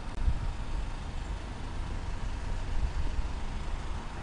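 Low, uneven rumble of wind buffeting the microphone outdoors, with no distinct events.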